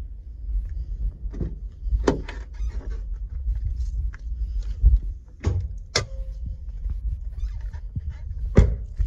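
A pickup truck's door being opened and handled: several sharp clicks and knocks from the latch and handle, the loudest near the end, over a steady low rumble on the microphone.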